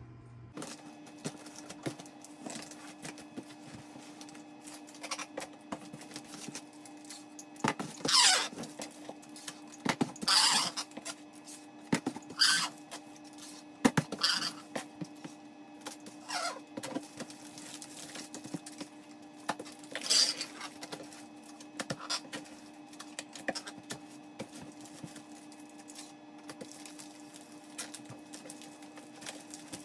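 Clear packing tape pulled off the roll in several loud, drawn-out rips and pressed onto a cardboard shipping box, with cardboard rustling, taps and clicks in between.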